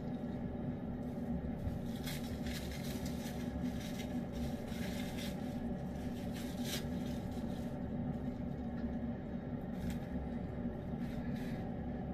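A steady low machine hum, with soft clicks and smacks of a cat eating from its bowl, mostly in the first half and again briefly near the end.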